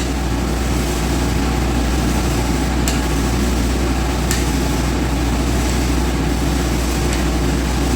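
TIG welding machine running with a steady low hum and hiss. Two faint clicks, about three and about four seconds in.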